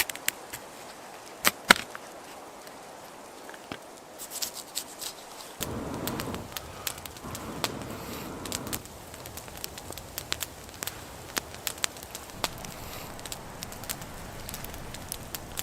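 Wood fire crackling with scattered sharp pops, two loud snaps about a second and a half in. A stretch of duller rustling noise from about six to nine seconds in.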